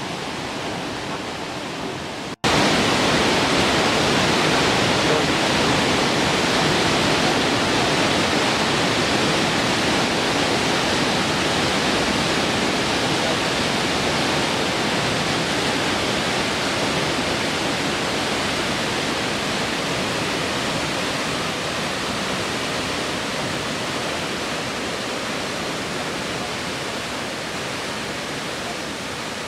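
Steady rushing of falling water from a tall, three-tiered waterfall, about 88 m high. The sound cuts suddenly about two seconds in and comes back louder, then slowly eases off.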